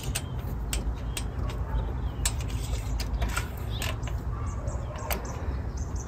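Ratchet and socket extension unscrewing a spark plug from an engine's cylinder head: scattered irregular clicks and light metal taps over a steady low rumble.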